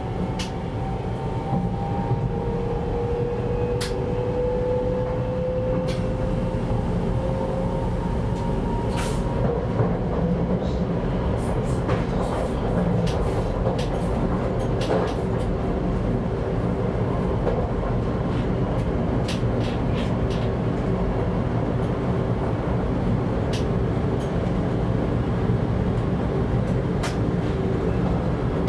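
Z50000 electric multiple unit running at about 110 km/h, heard from the driver's cab: a steady rumble of wheels on rail with scattered sharp clicks. A faint whine rises slowly in pitch for the first nine seconds or so, then fades.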